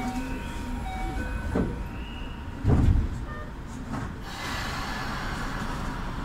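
Inside a Keio 8000 series train car: a heavy low thump about three seconds in, then a steady rushing running noise from the train.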